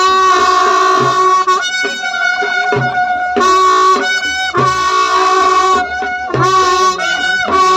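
Folk music: a shrill wind instrument playing a melody of long held notes that step between a few pitches, over a deep drum struck every couple of seconds. It begins abruptly.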